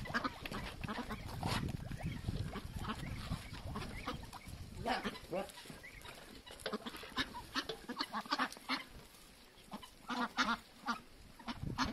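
Domestic ducks quacking, a run of short calls that come in clusters, busiest about five seconds in and again near the end.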